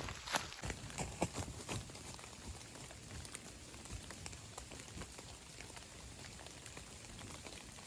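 Running footsteps in trail shoes on a wet trail, striking about two or three times a second and fading out after about two seconds, leaving a steady patter of rain.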